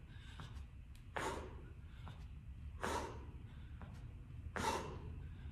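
A person breathing hard during squat reps, with a short forceful exhale about every second and a half to two seconds, three times. There is a faint steady hum underneath.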